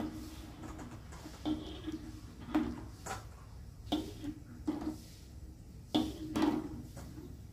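Eggs being set one by one into a pan of hot water: a series of short knocks as the shells tap against the pan and each other, roughly one or two a second.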